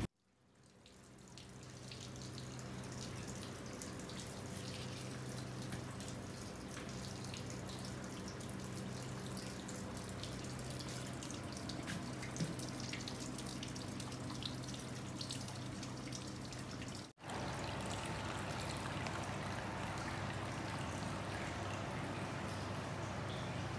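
Steady trickling and dripping water, as of hot-spring water running into a rock bath. The sound fades in at the start, cuts out for a moment about 17 seconds in, and comes back slightly louder.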